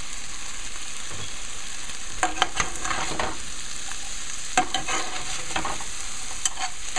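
Saltfish frying in oil in a pan, sizzling steadily, while a spoon stirs freshly added chopped onion, peppers and herbs through it. The spoon scrapes the pan in bursts about two seconds in and again around five seconds.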